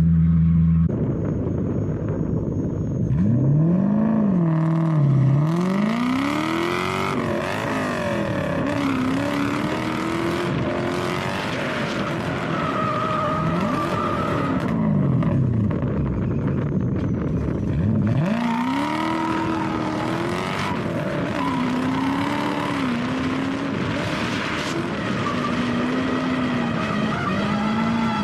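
Lexus SC400 drift car's engine revving hard, its pitch climbing and dropping repeatedly as the throttle is worked through a drift, over the hiss and squeal of the rear tyres sliding.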